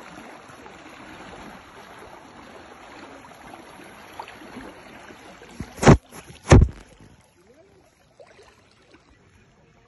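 River water rushing steadily, with two loud thumps about half a second apart a little past the middle; the water sound then drops away.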